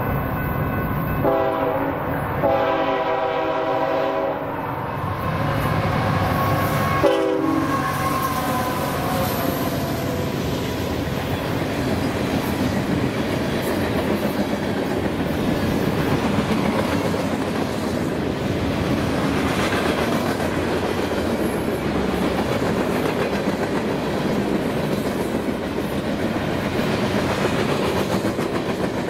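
A freight locomotive's multi-chime air horn sounds in several blasts, the last cutting off about seven seconds in. After that the train rolls by with a steady rumble of wheels clattering over the rail joints.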